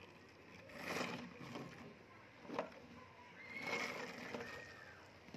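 A plastic toy tractor and trailer being handled, with rustling and light plastic clatter coming in a few swells and a sharp click about two and a half seconds in.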